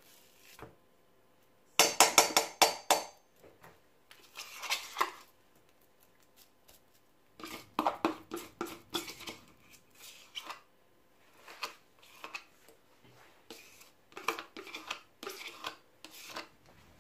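Metal spoon scraping soft cheese out of a plastic tub and knocking against a stainless steel bowl, in several spells of quick clicks and scrapes with short quiet pauses between.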